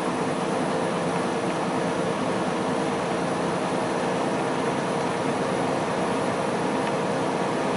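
Semi truck driving at highway speed, heard from inside the cab: a steady drone of engine and road noise.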